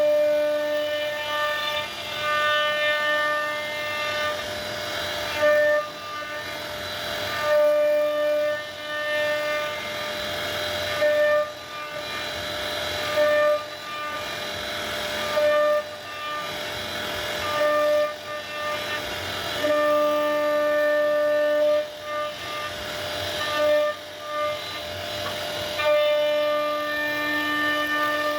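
CNC router spindle whining at one steady pitch while the bit carves wood. Every couple of seconds the clear whine gives way to a rougher cutting noise, then returns.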